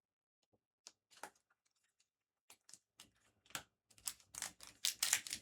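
Trading cards being handled: a few soft, scattered clicks and taps of card edges, then from about four seconds in a building crinkle of a foil booster pack wrapper being handled.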